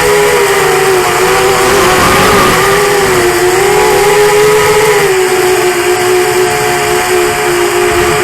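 Brushless motors and propellers of a QAV210 FPV quadcopter (2204 2300Kv motors) whining in flight, the pitch wavering up and down as the throttle changes, over a steady rush of air.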